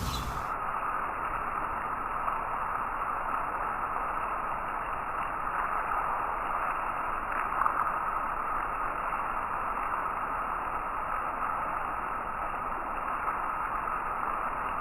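Steady rain: an even hiss of falling raindrops.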